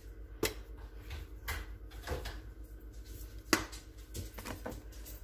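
A few light clicks and knocks from spice containers being handled, the sharpest about three and a half seconds in.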